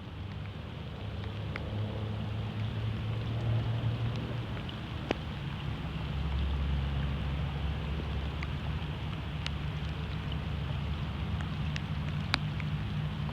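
Light rain sprinkling, with scattered separate drops ticking sharply, over a steady low rumble.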